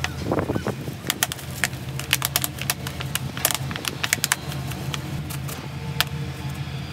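Cut plastic drink bottle clicking and crackling as gloved hands handle it: a quick run of sharp clicks that thins out after about four seconds, over a steady low hum.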